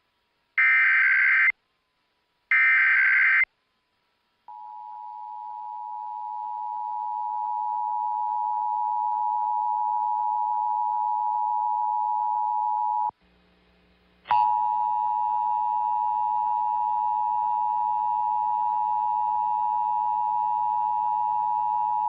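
Two short bursts of Emergency Alert System digital data screech, about a second apart: the end-of-message code closing the previous test. Then the EAS attention signal, the steady 853 and 960 Hz two-tone, swells in and holds until it cuts off about thirteen seconds in. After a brief low hum, the attention signal starts again abruptly with a click and holds.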